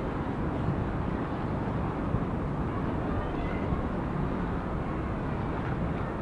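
Steady low rumbling outdoor background noise, with no single distinct sound standing out.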